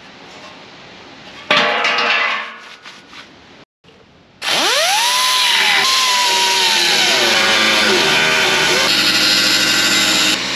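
Angle grinder spinning up and grinding into a car body's sheet-metal seam, its pitch rising quickly and then sinking slowly as the disc is loaded against the metal. A short loud burst of noise comes about a second and a half in, before the grinder starts.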